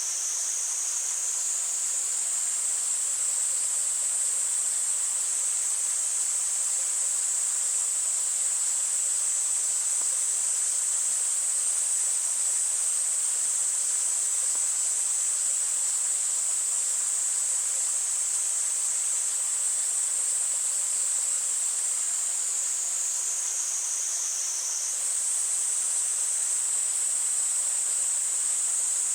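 Cicadas droning in a steady, high-pitched, unbroken chorus over a faint rush of stream water.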